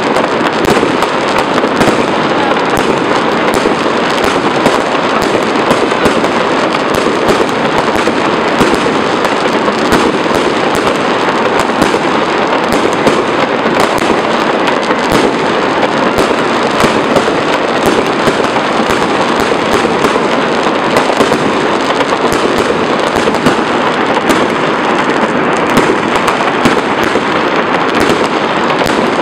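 Fireworks going off in a dense, unbroken barrage: many overlapping bangs at a steady, loud level with no pauses.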